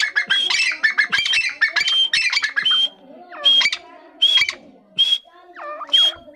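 Grey francolins calling: a fast run of sharp, shrill notes for about three seconds, then single high notes about every three-quarters of a second.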